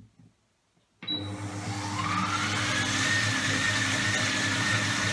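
Monsieur Cuisine kitchen machine starting about a second in with a short high beep, its blade motor on speed 5 whining up in pitch over about two seconds and then running steadily as it blends a thick sauce.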